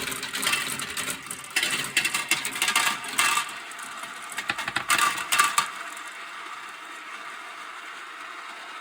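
Many marbles clicking and clattering as they roll down a plastic marble-run slope track, in dense bunches of clicks, then fading to a quieter steady rolling about six seconds in.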